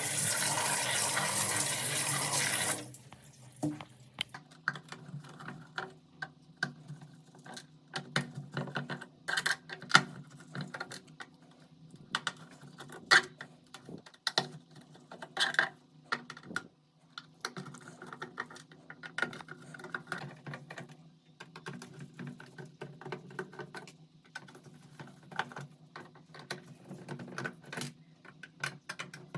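A water tap running steadily for about three seconds, then cutting off. It is followed by a long run of irregular light clicks and clatter as plastic keyboard parts are handled and knocked together.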